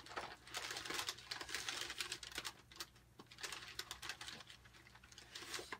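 Quiet rummaging through a box of packaged snacks: irregular rustling and crinkling of wrappers and packing, with small clicks.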